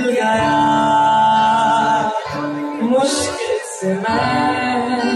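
Live band performing a Hindi film song through a PA, a singer holding long drawn-out notes over acoustic guitar accompaniment.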